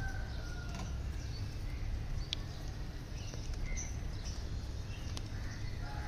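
Peach-faced lovebirds giving a few faint, short chirps and whistles over a steady low rumble.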